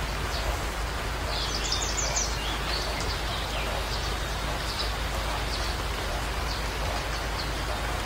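A steady, even hiss with small birds chirping over it in quick runs of high chirps, the busiest run about a second and a half in.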